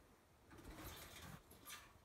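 Faint scratching from an animal trapped inside a wood stove's metal stovepipe: a scratchy rustle starting about half a second in and lasting most of a second, then a shorter one near the end.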